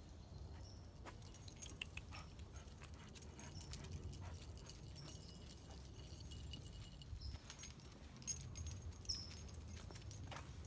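Faint jingling of a Chow Chow's collar tags and leash as it walks, with scattered light clicks over a low rumble from wind or handling on the microphone. A couple of short high chirps come near the end.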